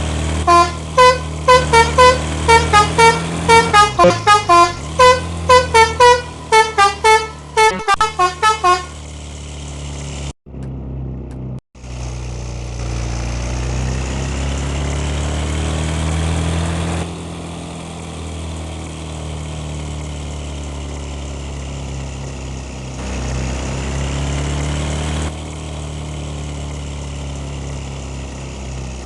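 Bus 'telolet' multi-tone horn playing a quick tune of short, loud notes for about nine seconds over the bus's running engine. After that the engine runs on alone, its pitch slowly rising and falling.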